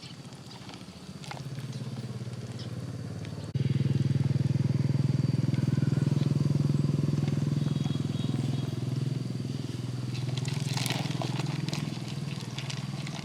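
A small engine running steadily, stepping up suddenly in loudness about three and a half seconds in, with scattered clicks near the end.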